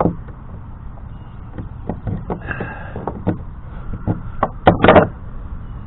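Scattered knocks and clunks from handling a plastic kayak hull, with a louder burst of clatter near the end.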